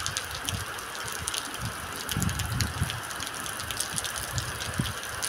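Heavy rain pouring onto a concrete yard: a steady hiss full of sharp drop ticks, with irregular low rumbles underneath.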